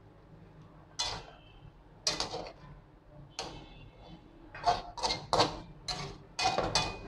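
Slotted metal spatula scraping and knocking against a large aluminium karahi as frying chicken pieces are stirred and turned. There are about a dozen strokes, a few in the first half and then in quick succession, some with a short metallic ring.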